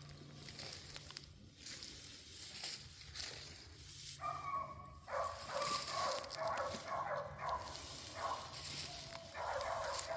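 Young bird dogs whining and yelping in high-pitched bouts that start about four seconds in and keep breaking off and starting again, over a low steady hum.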